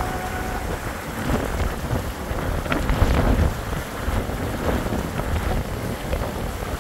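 Wind buffeting the microphone on a ship's open deck: an uneven low rumble and rush. A steady tone stops about half a second in.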